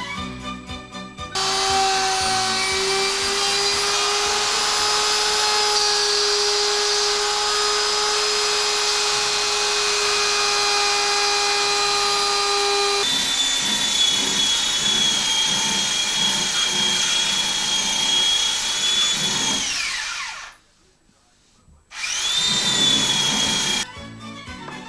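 Electric plunge router running at speed, a loud steady whine, while routing a small wooden part. About thirteen seconds in the sound changes abruptly; around twenty seconds it falls in pitch and stops, then runs again for about two seconds before cutting off. Music is heard briefly at the start and at the end.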